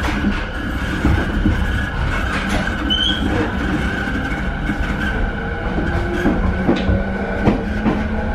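E217 series train's Mitsubishi IGBT-VVVF inverter and traction motors whining in stepping, then rising, tones as the train gets under way, heard inside the passenger car over the rumble of the wheels on the rails.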